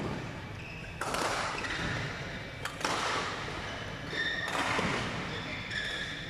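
Badminton rackets striking shuttlecocks and footfalls on the court floor: several sharp hits, each followed by an echo from the large hall.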